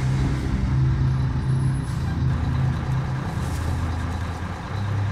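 Fire engine's engine idling with a steady low hum.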